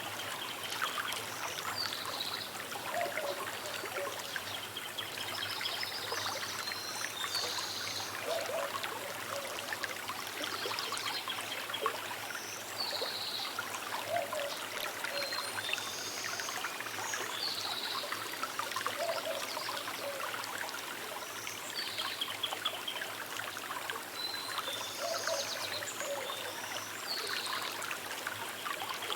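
Small river running and trickling steadily over stones, with birds giving short high chirps every few seconds.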